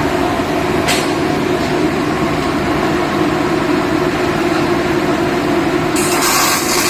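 Steady drone of running machinery with a low hum, a single click about a second in, and a steady hiss that starts near the end.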